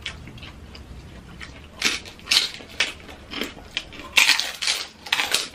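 Crunching and chewing of crisp chicharon (pork rind crackers): a run of sharp crunches that starts about two seconds in.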